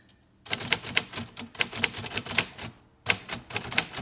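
A 1953 Royal Quiet De Luxe manual typewriter being typed on, its keys cleaned and striking freely. A quick run of key strikes starts about half a second in, about five or six a second, with a brief pause near three seconds before the typing resumes.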